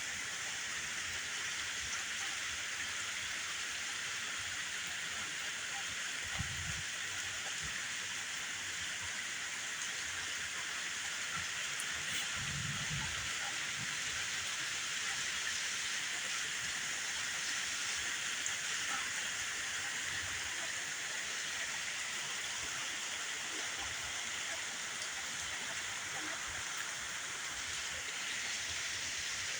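Steady rain falling, an even hiss of drops, with a faint low rumble twice, about six and twelve seconds in.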